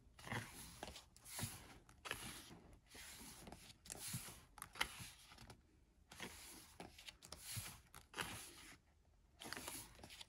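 Pages of an album photo book being turned and smoothed flat by hand: faint paper rustling and sliding in a run of short bursts, with a couple of brief pauses.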